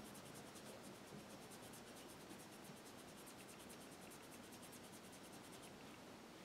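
Faint, quick rubbing of a sponge-tip applicator buffing gold chrome pigment powder onto a practice nail, stopping shortly before the end.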